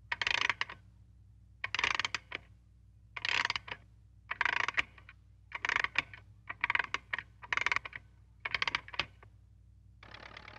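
About eight short bursts of dry mechanical clicking and rattling, each about half a second long and coming roughly a second apart, over a faint steady hum.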